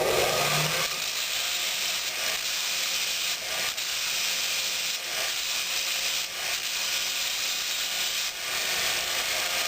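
A 100-grit belt on a 2x36-inch belt grinder attachment grinding a steel railway spike: a steady hiss of abrasive on metal over a faint motor hum, starting about a second in. This is the stage that reduces the scratches left by the coarser 40-grit belt.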